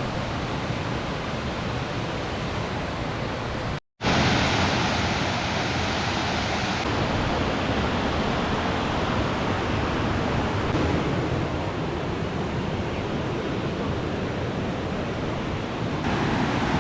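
Steady rushing of a waterfall, the water pouring and splashing without a break. It cuts out for a split second about four seconds in and comes back a little louder.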